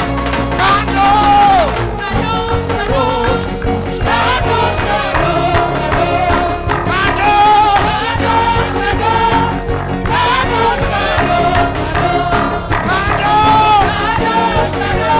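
Gospel worship music: sung vocals over a steady instrumental backing.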